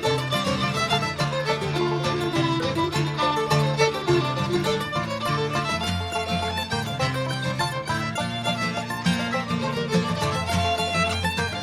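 Acoustic string band playing a bluegrass-style tune, with fiddle, guitar, banjo and mandolin, the fiddle carrying the melody over a steady strummed and picked accompaniment.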